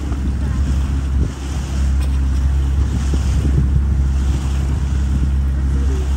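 A small motorboat running at speed: wind buffeting the microphone over the steady low drone of the engine and the rush of water from the wake.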